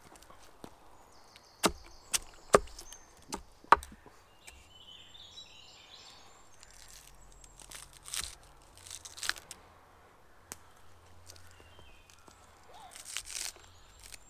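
Small hatchet chopping green vegetable stems on a wooden log stump. A run of five sharp chops comes in about two seconds, followed later by a few softer cuts.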